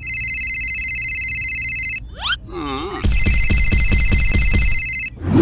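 A mobile phone ringtone: a steady electronic ring of several high tones for about two seconds. A short, high, sped-up cartoon voice follows, then the ring again with a fast low pulsing under it.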